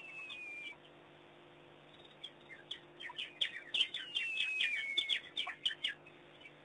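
High-pitched chirping calls in a quick series, with a thin whistle falling in pitch heard briefly at the start and again, longer, in the middle.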